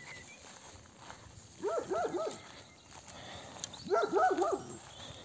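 A livestock guardian dog barking in two quick bursts of three or four barks, about two seconds apart. These are alarm barks at something unseen.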